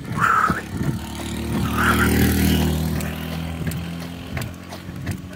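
A motor vehicle passing close by on the road: its engine hum rises to a peak about two seconds in and then fades, with two short higher-pitched sounds near the start and at the peak. A jogger's rhythmic footsteps on asphalt run beneath it.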